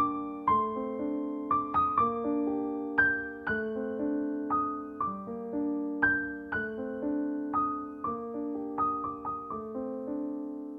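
Background piano music: a slow, calm melody of struck notes, about one to two a second, over held lower notes.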